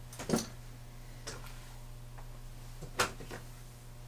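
A few sharp clicks and knocks as steel machinist's blocks are handled out of their box, the loudest about three seconds in, over a steady low hum.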